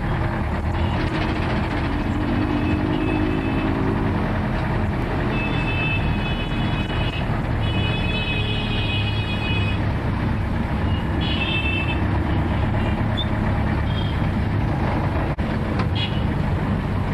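Busy street traffic with steady engine noise, and vehicle horns sounding three times in the middle.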